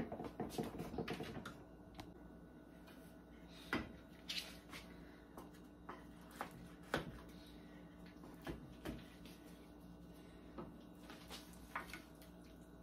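Scattered light clicks and knocks of serving utensils against a glass baking dish and glass plate as a portion of baked pasta is lifted out, with a short clatter at the start.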